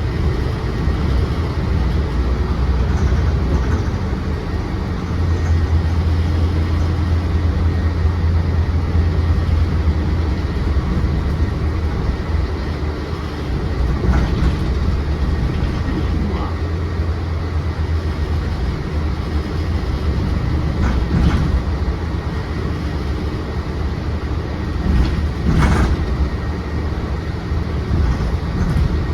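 Inside a Mercedes-Benz Citaro C2 city bus under way: a steady low engine and drivetrain rumble with road noise, growing heavier about five seconds in, and a few brief rattles.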